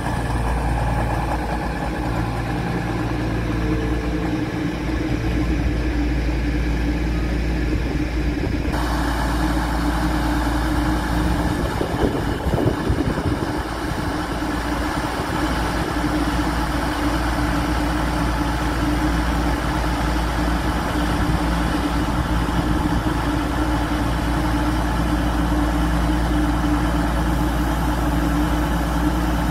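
Class 222 Meridian diesel-electric multiple unit standing with its underfloor Cummins diesel engines idling steadily. About nine seconds in, a steady higher hiss starts abruptly on top of the engine drone.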